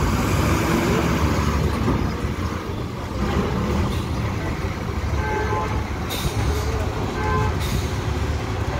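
Diesel coach buses driving off a ferry ramp, engines running in a steady low rumble as they pull past. Two brief air-brake hisses sound near the end.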